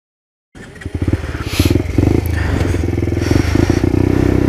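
Silence, then about half a second in a 50cc Motrac (SkyTeam) M5 supermoto engine starts up loud and keeps running under throttle as the bike is ridden over rough dirt.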